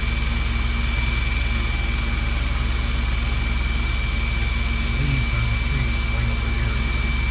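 Medical transport helicopter running on the ground with its main rotor turning: a steady high turbine whine over a low, even rotor drone.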